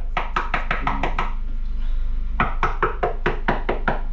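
Rapid knocking on the fiberglass of a sailboat's bilge and keel structure, about five knocks a second, in two runs with a pause of about a second between them. It is a tap test for delamination in the fiberglass.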